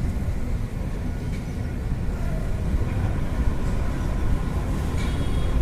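Passenger train running, a steady low rumble of the wheels and carriage with a few faint ticks near the end.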